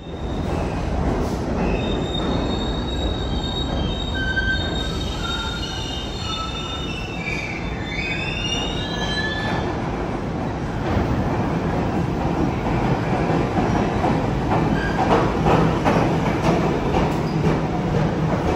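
Steel subway wheels squealing on curved track, several high tones sliding up and down in pitch over a steady rumble. About ten seconds in the squeal fades and a New York City subway train runs in, its rumble growing louder with clacks over the rail joints as it pulls alongside the platform.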